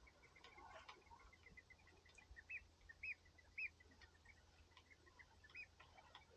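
Faint, fast, even ticking of a spinning reel being wound in on a lure retrieve, with four short chirping bird calls over it.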